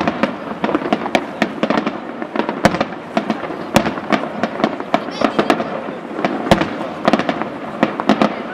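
Bruscella Fireworks aerial display: shells and crackling stars bursting in a dense, irregular stream of bangs and crackles, several a second, with a few sharper reports standing out.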